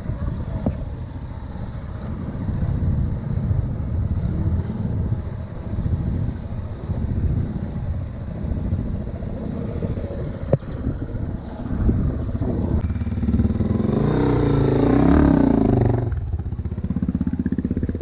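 Off-road motorcycle engines running below, one revving up and passing loudest about three-quarters of the way through, its pitch rising and falling.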